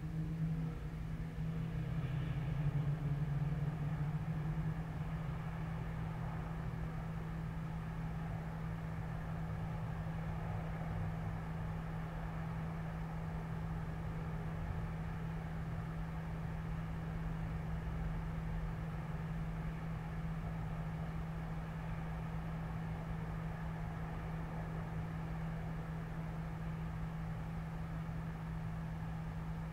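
Steady low drone of distant city traffic under a constant machine hum, swelling slightly about two seconds in as a vehicle passes.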